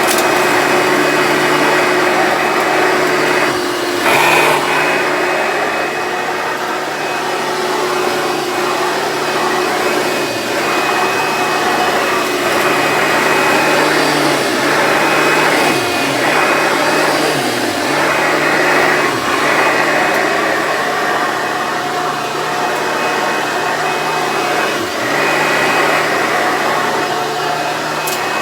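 Hoover Dimension Supreme upright vacuum cleaner running steadily while picking up shredded paper. Its motor note briefly dips in pitch several times, and there is a short louder rush about four seconds in.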